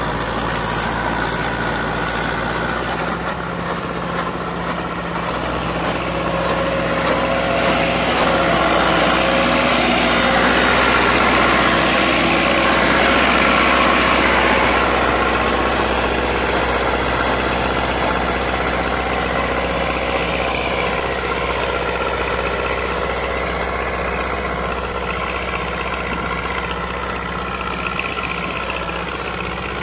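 Massey Ferguson 185 tractor's four-cylinder diesel engine running steadily under load while it drives a rotavator churning dry soil. It grows louder for a while near the middle as the tractor passes close by.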